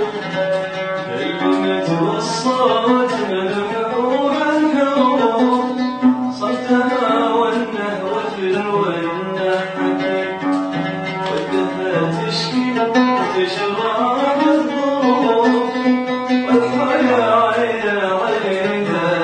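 Oud being plucked, with a man singing a slow, ornamented Arabic melody over it, his voice sliding and wavering through long phrases.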